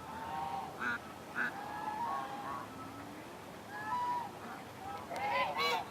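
Ducks and ducklings calling: a string of short calls, with a louder run of calls near the end.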